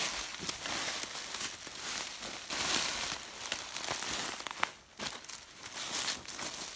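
Footsteps crunching through dry leaf litter on a forest floor as a hiker walks downhill, with one sharper crack a little past the middle.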